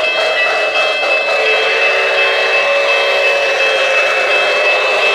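O-gauge model train of the New York Central's streamlined Dreyfuss Hudson passing on three-rail track: a steady rolling rush of wheels and running gear with a constant thin whine.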